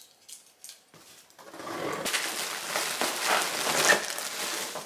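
A parcel being opened with scissors: a few faint clicks, then from about a second and a half in, loud uneven crinkling and scraping of packaging being cut and pulled open for over three seconds.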